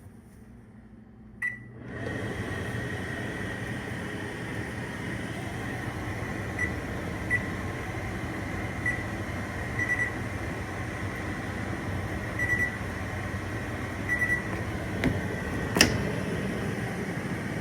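Microwave oven started with a single short beep, then running with a steady hum. A few faint short chirps at the beep's pitch come through the hum, and there is a sharp click near the end.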